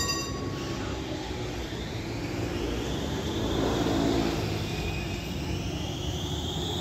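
Rotterdam tram running past, the rumble of its wheels on the rails under a whine from its electric traction motors that glides in pitch. A sharp click with a brief ringing comes right at the start.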